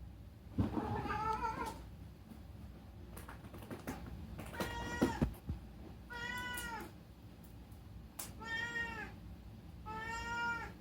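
A domestic cat meowing five times, each meow drawn out for about half a second to a second, a second or two apart, with a few light clicks in between.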